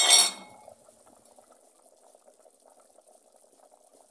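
A metal pot lid clanks and rings briefly as it is lifted off, then a pot of beef sauce bubbles quietly at a steady boil.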